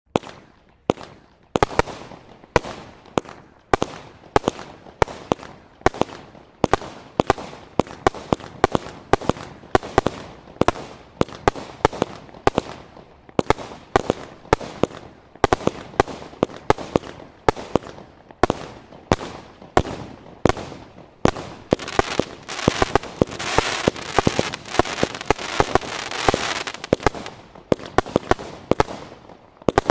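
Standard Fireworks Oblivion, a 120-shot single-ignition firework cake, firing shot after shot in a rapid run of sharp bangs, about two or three a second. About three quarters of the way through comes a thicker stretch where a continuous crackling hiss fills the gaps between the bangs.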